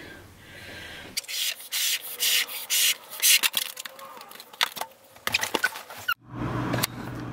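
Latex party balloons being blown up by mouth and handled: a string of short breathy puffs into the balloon and rubbing of the stretched rubber as it is knotted. The sound cuts off suddenly about six seconds in.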